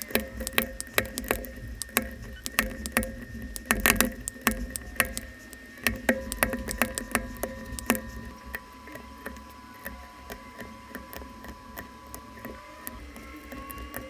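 Typing on a Keychron K3 low-profile hot-swap mechanical keyboard with Keychron optical switches: a dense clatter of key clicks that thins out to scattered keystrokes after about eight seconds.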